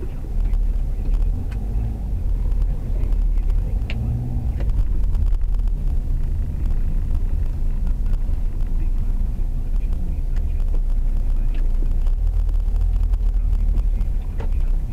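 Low, steady rumble of a taxi's engine and tyres heard from inside the cabin as it creeps through a driveway.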